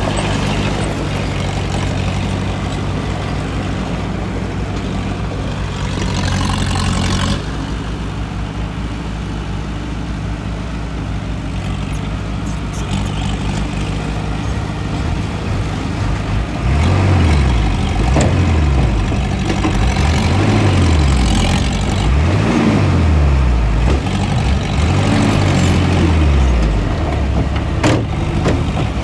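Diesel engine of heavy earthmoving machinery running steadily, then, from a little over halfway through, revving up and down again and again as it works. A sharp click comes near the end.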